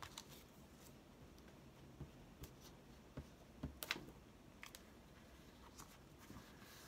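Quiet scattered taps, clicks and paper rustles from hands handling cut-out paper pieces and a glue stick, the loudest cluster about four seconds in.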